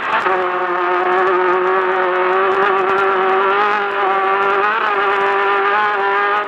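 Class 10 off-road race car's engine running flat out at high, steady revs, with a brief wobble in pitch about five seconds in and scattered knocks and rattles over it.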